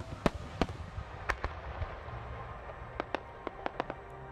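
Aerial firework shells bursting: a loud bang right at the start, several more bangs over the next second and a half, then a run of separate sharp cracks about three seconds in.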